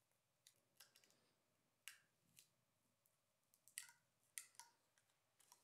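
Faint, irregular sharp clicks and light scraping from a hobby knife cutting hinge slots in film-covered balsa tail parts and the parts being handled and fitted together, about eight small clicks in all.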